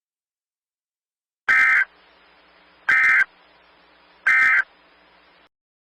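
Three short bursts of Emergency Alert System digital data tones, a harsh warbling buzz each under half a second long and about one and a half seconds apart: the end-of-message signal that closes an EAS alert.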